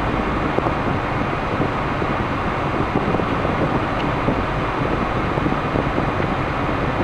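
Steady cabin noise of a moving 1998 Toyota 4Runner: road and engine noise blended with the A/C blower running on high, an even rush with no sudden events.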